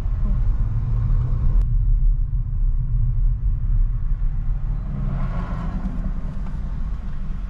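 Car cabin noise while driving: a steady low rumble of engine and tyres on the road. The higher road hiss drops off suddenly about two seconds in and swells again around five seconds in.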